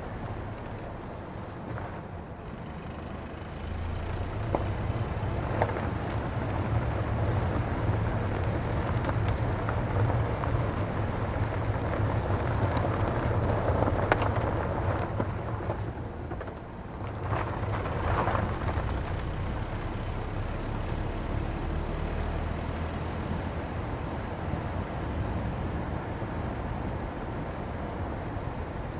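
Car tyres rolling over a rough road surface: a continuous low rumble with gritty road noise on top, swelling about four seconds in and easing briefly around the middle before carrying on steadily.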